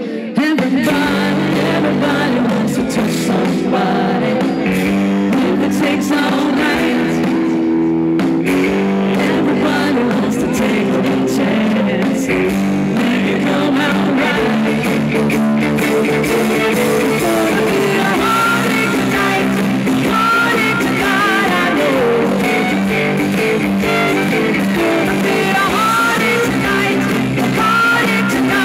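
Live rock band playing with electric guitars, bass guitar and a drum kit, with a fiddle bowed near the end.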